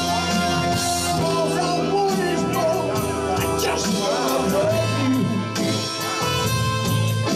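Live rock and soul band playing an R&B song: drum kit with cymbals, electric bass, electric guitar and keyboards.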